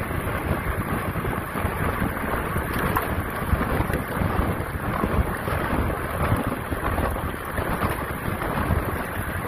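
Steady rush of wind buffeting the microphone of a camera on a bicycle moving at speed, heaviest in the low end and unbroken throughout.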